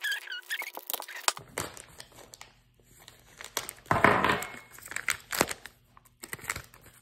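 Clear plastic packaging bag of a replacement RC crawler motor crinkling and rustling as it is handled, with many small crackles and a louder rustle about four seconds in.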